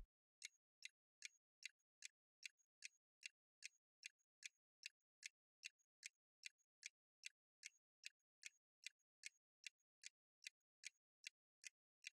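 Faint ticking-clock sound effect marking a countdown timer, an even tick about two and a half times a second.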